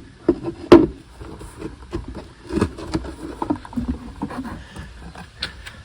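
The engine hood (motor cover) of a 1969 Evinrude 6 HP outboard being handled and fitted onto the stopped motor: a sharp knock right at the start and a loud clunk under a second in, then irregular smaller knocks, scrapes and rattles.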